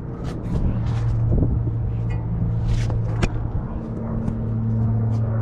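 A vehicle engine running steadily with a low hum, with scattered sharp clicks and knocks over it.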